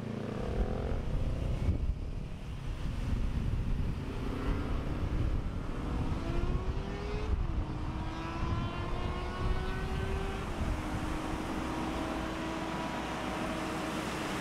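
A motor vehicle accelerating: its engine note rises, drops sharply twice as it changes up through the gears, then holds steady, over a low steady rumble of wind and surf.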